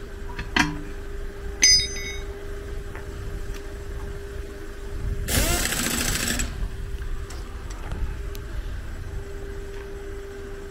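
A vehicle engine idling with a steady hum. Two sharp metallic clinks ring out in the first two seconds, and a hiss lasting about a second comes just past the middle.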